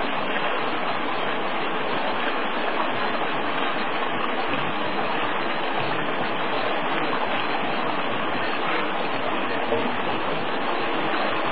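Water gushing steadily out of a pump's outlet pipe and splashing down, an even rushing noise with no break.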